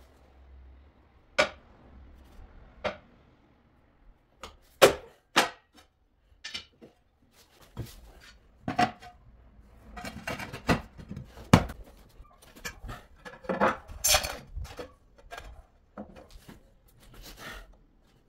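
Ceramic floor tiles being handled: sharp clacks and knocks as tile pieces are set down on concrete and against other tiles, with scraping as they are slid into place.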